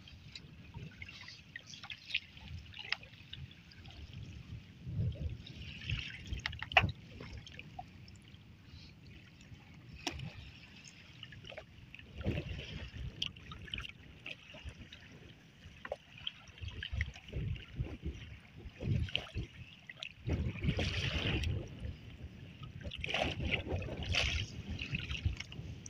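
Water splashing and trickling off a fishing net as it is hauled hand over hand out of the river into a small wooden boat, in irregular surges with a few light knocks, over a low rumble of wind on the microphone.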